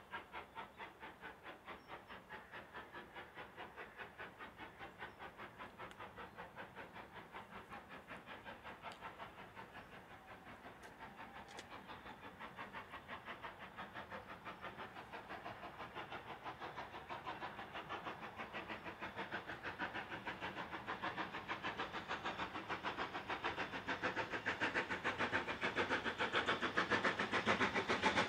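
Steam locomotive working, its exhaust beat a quick, even rhythm of chuffs that grows steadily louder, loudest near the end.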